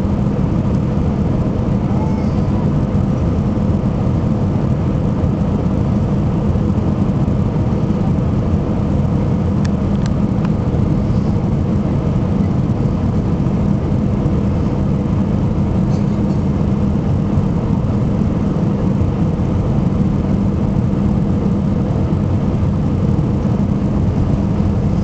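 Cabin noise of an Airbus A319 on final approach: the steady, loud rumble of the engines and airflow heard from a seat by the wing, deep and even, with a low hum that holds steady.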